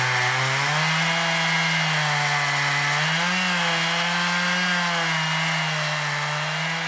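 Stihl MS461 two-stroke chainsaw running at full throttle under load, ripping lengthwise through a log in a Granberg Alaskan chainsaw mill. The engine note rises slightly about a second in, then holds steady with a brief waver around three seconds.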